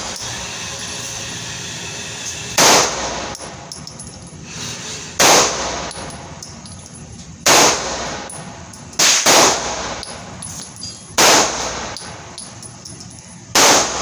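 Pistol shots: seven in all, mostly about two and a half seconds apart with a quick pair near the middle, each followed by a short ring of echo.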